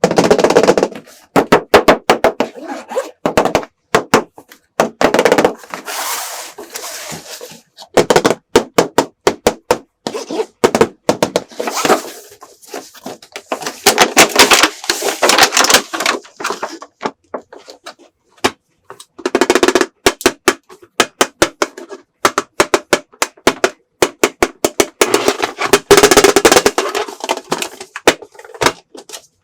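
Rapid clattering and tapping of small hard objects, in bursts of a few seconds with short pauses between.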